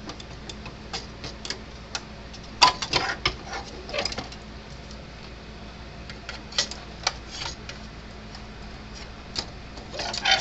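Irregular light clicks and knocks of hand work on a fence charger's parts at the workbench, in several short clusters, over a steady low hum.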